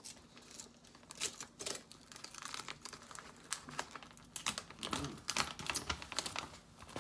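Crinkly plastic snack bag being worked open: irregular crackling and rustling of the packaging.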